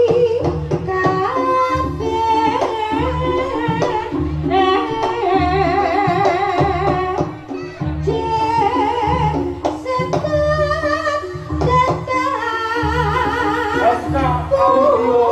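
Live Javanese jaranan music: drums beat a steady pulse under a wavering melody line, with singing. It dips briefly about halfway through.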